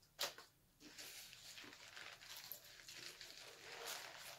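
Quiet close-up eating sounds of fried chicken being bitten and chewed: a sharp crunch about a quarter second in, then a run of small wet crackles and mouth smacks.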